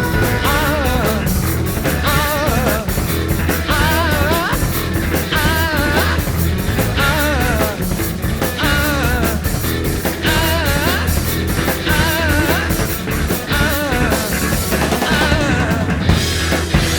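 Background song with drums, a steady bass line and a singing voice that comes in short wavering phrases.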